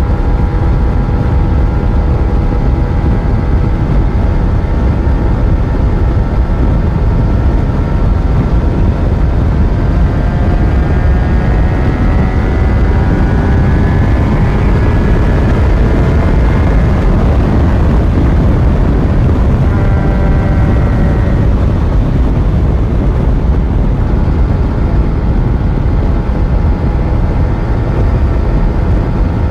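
Yamaha FZ1 inline-four motorcycle engine running on the move under heavy wind and road rumble. About a third of the way in the engine note climbs for several seconds as it accelerates, then falls away, picks up briefly again, and settles back to a steady cruise.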